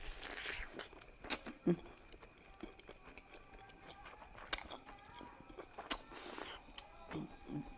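Eating sounds close to the microphone: scattered wet mouth clicks and smacks of chewing, with two short hissy slurps or sucks, one at the start and one about six seconds in.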